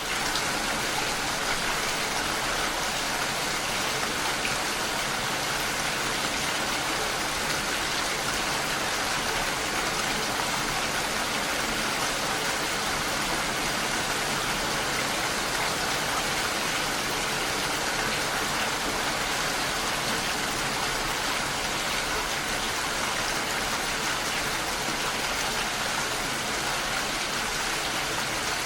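Steady rain, an even, unbroken hiss of falling rain at a constant level.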